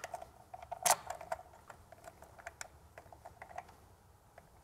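Irregular small clicks and ticks of a Phillips screwdriver turning a small screw into a black plastic mount, with a sharper click about a second in.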